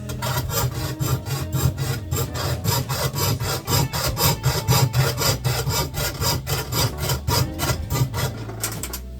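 Fret saw (jeweler's saw) cutting a piece of scrap metal in quick back-and-forth strokes, about five or six a second, stopping shortly before the end.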